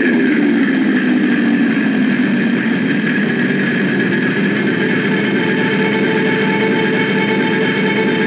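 Zephyr FX Dream Catcher guitar effects pedal putting out a sustained droning wash through the amp as its knobs are turned. A low pitch slides down in the first second, then the drone holds steady, with a faint higher tone drifting down near the end.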